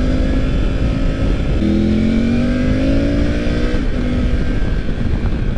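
Triumph Tiger 900 Rally Pro's three-cylinder engine pulling under acceleration. Its note rises, drops about one and a half seconds in at an upshift, then climbs again before easing off near four seconds, over steady wind noise.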